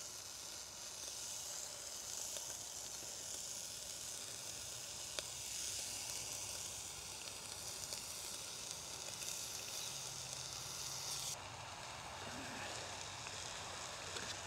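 Bacon rashers sizzling as they fry in a hot pan on a gas camping stove, a steady high hiss. The sizzle turns softer and duller about eleven seconds in.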